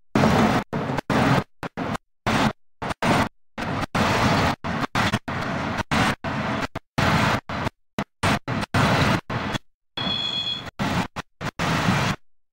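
Class 60 diesel locomotive, with its Mirrlees V8 engine, running as it hauls a train of loaded coal hopper wagons. The sound keeps cutting out to silence a few times a second, and a brief high whine comes about ten seconds in.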